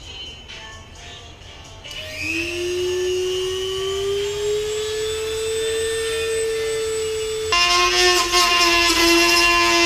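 Dremel rotary tool switched on about two seconds in, its whine rising slowly in pitch as it speeds up. Near the end it starts cutting into the carbon fiber diffuser: the sound turns louder and harsher and the whine drops to a lower, steady pitch as the tool takes the load.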